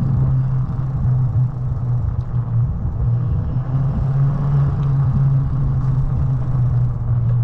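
Motor of a small ridden vehicle humming steadily while moving along, with rough rumbling noise underneath.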